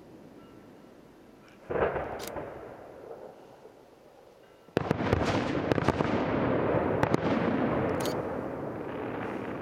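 Aerial firework shells bursting: one bang about two seconds in that echoes away, then a louder bang followed by several seconds of dense crackling and sharp reports that slowly fade.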